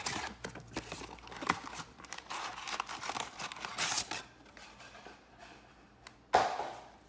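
Packaging being torn open by hand: plastic wrap crinkling and tearing on a trading-card blaster box, with irregular rustles and crackles and one short, louder tear near the end.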